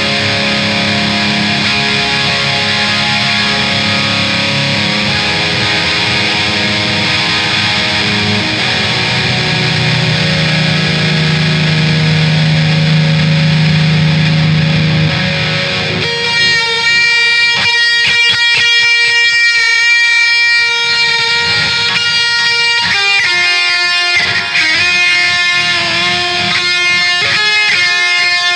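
Instrumental passage of a song led by electric guitar: dense sustained chords for the first half, then about sixteen seconds in the guitar switches to a quick line of separately picked notes.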